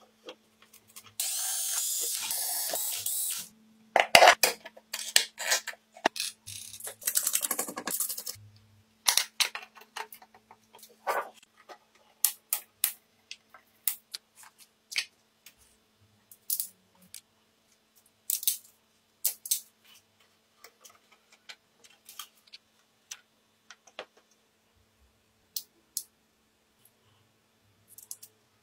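Small hard parts and tools being handled: a long string of separate clicks and knocks, with a hiss lasting about two seconds that starts about a second in and a shorter noisy burst around seven seconds in.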